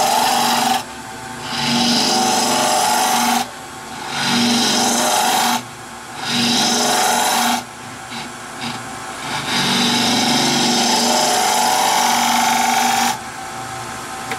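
Turning tool cutting into the end grain of a spinning wood blank on a lathe, starting the hollow at the center. Five cutting passes of a few seconds each make a loud scraping hiss, and in the short gaps between them only the lathe's steady hum is left.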